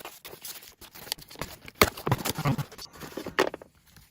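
Rustling, crinkling and tapping of a product's cardboard and paper packaging being handled during unboxing, with a sharp knock a little under two seconds in.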